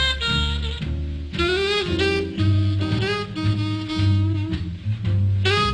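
Jazz music: a saxophone plays a melody with bending notes over a steady bass line.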